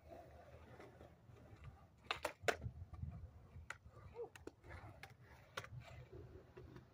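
Tony Hawk 31-inch popsicle skateboard rolling on concrete, heard faintly as a low rumble, with sharp clacks of the board: a quick cluster of three about two seconds in and a few single ones after.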